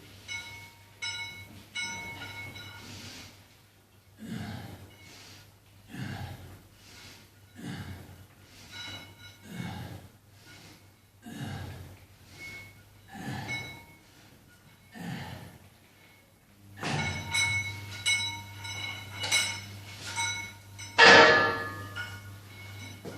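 Gym weights knocking and clinking in a steady rhythm, about one knock every two seconds, with a loud ringing metal clang about 21 seconds in.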